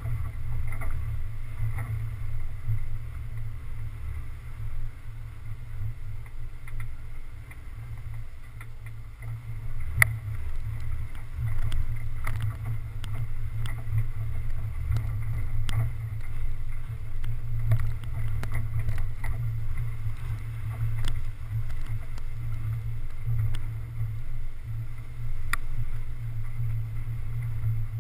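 Low, muffled rumble of a four-wheel-drive vehicle's engine and drivetrain, picked up through a hood-mounted GoPro's housing as the vehicle climbs a dirt trail. A few sharp knocks from bumps, the loudest about ten seconds in.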